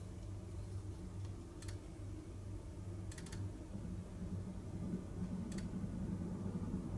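Low, steady hum that grows a little stronger about halfway through, with a few faint, sharp clicks about two seconds apart.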